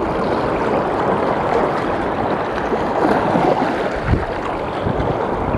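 Steady rushing of wind on the microphone mixed with small waves washing over a shallow rocky reef, with a dull bump about four seconds in.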